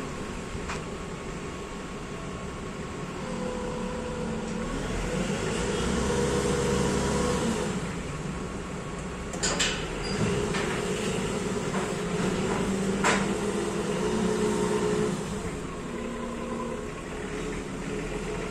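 Mitsubishi FD50NT 5-ton diesel forklift's engine running at low revs, its speed rising and falling as the forklift creeps down steel loading ramps. Two sharp knocks come about halfway through and again a few seconds later.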